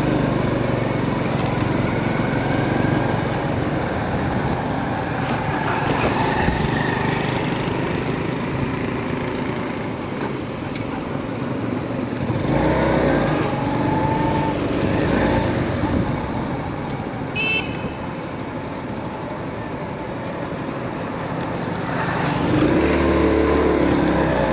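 Motorcycle running steadily through street traffic, with road and traffic noise throughout. There is a brief sharp high-pitched beep about two-thirds of the way through.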